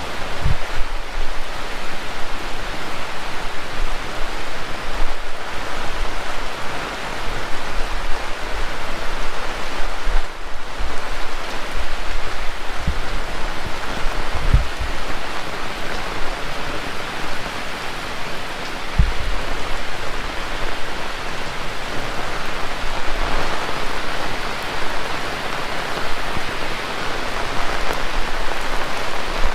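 Heavy rain falling steadily and densely, with a few brief low thumps along the way.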